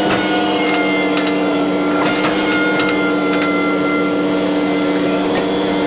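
Hitachi ZX210F-5G excavator working under load: a steady diesel engine note with hydraulic whine, its pitch dipping slightly about two seconds in, as the arm lifts a load out of the ditch. A few sharp clicks and cracks in the first half.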